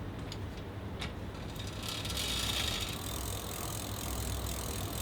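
Fat bike rear wheel spun by hand, with a few ratchet-like ticks, then a brief hiss about two seconds in as the 203 mm rear disc brake rotor is braked.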